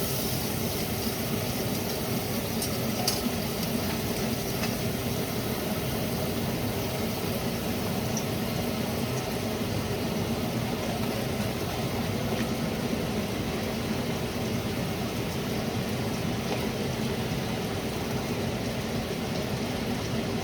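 Butter and pancakes sizzling in a hot pan: a steady frying hiss, with a few light clicks in the first few seconds.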